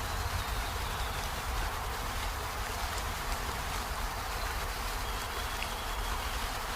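Steady rain falling on peony flowers and leaves, an even hiss with a low rumble underneath and a faint thin high tone twice.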